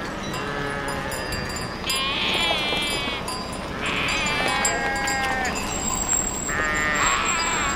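A flock of sheep bleating, several quavering calls overlapping, the loudest coming about two seconds in, midway, and again near the end.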